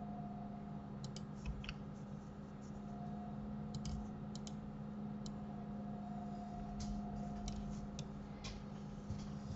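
Scattered sharp clicks of a computer mouse and keyboard keys, some in quick pairs, over a steady low electrical hum.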